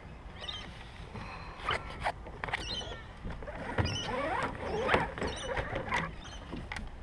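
Hobie Outback kayak's plastic hull squeaking and knocking against the roof rack as it is shifted and lifted off the car, with a cluster of squeaks and scrapes from about four to six seconds in.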